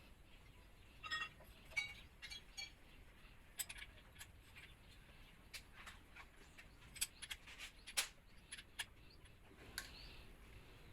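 Faint, scattered short clicks and light clinks, a dozen or so at irregular intervals over a low steady background.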